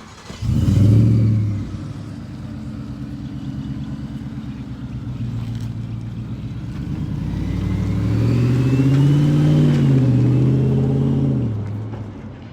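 Truck engine starting about half a second in, flaring up loudly and then settling to a steady idle. Later it revs up and back down once, then dies away near the end.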